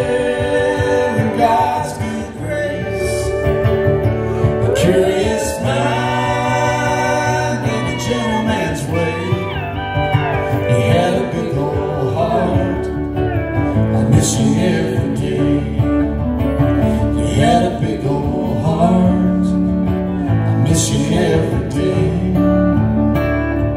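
Live country song: acoustic guitar strumming under sung vocals, continuing through the chorus.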